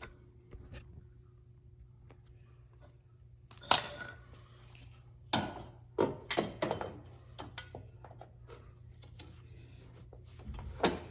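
A door threshold being handled and set down on a concrete floor: a few sharp knocks and taps, the loudest about four seconds in, then a quick run of lighter knocks a couple of seconds later and one more near the end.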